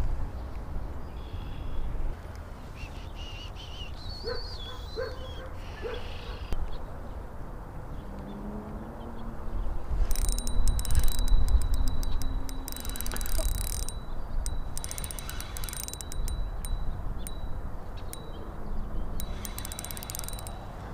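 Spinning reel being cranked on a slow steady retrieve: rapid fine clicking from the gears, with a faint steady whine, starting about ten seconds in and coming in stretches. Wind rumbles on the microphone throughout.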